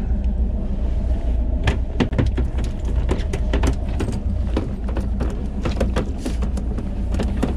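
Steady low rumble of wind on the microphone with a faint steady hum underneath, and from about two seconds in a run of sharp taps and knocks.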